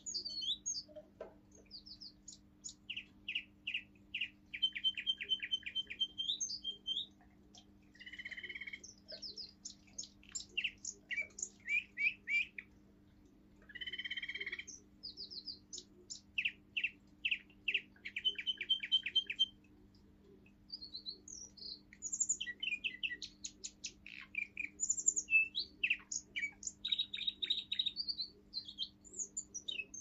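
Young male Russian song canary singing its forest-tune (лесной напев) song: phrases of quick repeated notes and rolling trills, broken by short pauses.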